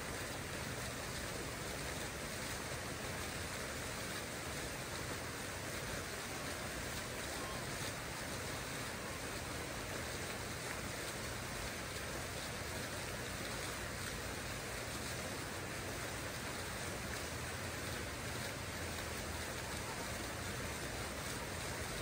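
Water fountain splashing steadily, an even rush of falling water, with a faint low rumble underneath.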